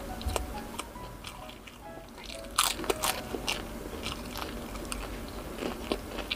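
Close-miked eating: crunchy bites and chewing, with the loudest crunches about two and a half and three seconds in.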